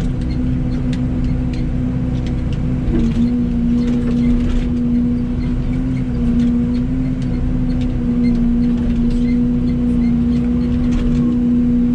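Excavator's diesel engine running steadily, its pitch dipping slightly a few times, with scattered light clicks and knocks.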